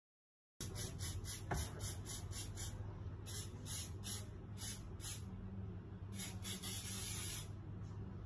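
Aerosol hairspray can sprayed at a bride's hair in short hissing bursts, about four a second at first, then in a few longer bursts until near the end. It starts after half a second of silence, over a faint low hum.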